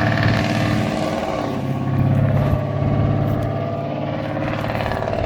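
Motor vehicle engine running steadily: a continuous low engine hum.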